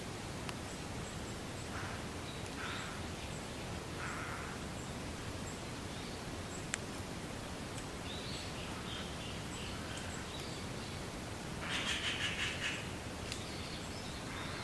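Wind blowing through reeds: a steady rustling hiss, with a few short louder rustles and a rapid rattling burst about twelve seconds in. Faint high chirps tick along about twice a second, and there is one sharp click about seven seconds in.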